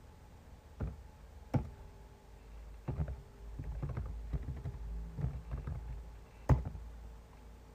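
Computer keyboard keystrokes: a few single key presses, then a quicker run of taps, and one louder key press near the end.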